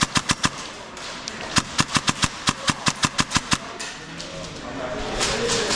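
Airsoft guns firing rapid strings of sharp shots: a quick burst in the first half second, then a string of about a dozen shots at roughly five or six a second, and fainter scattered shots near the end.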